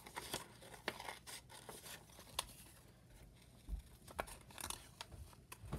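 Small hand scissors snipping through patterned scrapbook paper, cutting a wavy edge: a run of quiet, irregular snips.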